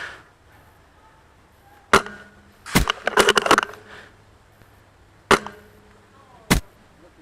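A VSR-10 spring-piston airsoft sniper rifle firing and its bolt being worked: a handful of sharp cracks and clacks, with a quick run of several just after three seconds in and single ones about two, five and six and a half seconds in.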